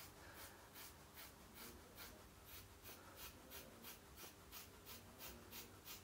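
Ordinary household scissors snipping through a thick ponytail of hair: a faint, even run of short cuts, about three a second.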